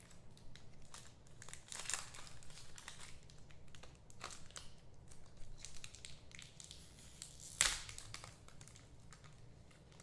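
Irregular crinkling and rustling of trading-card packs and thin plastic penny sleeves being handled, with one sharper, louder crackle about three-quarters of the way through.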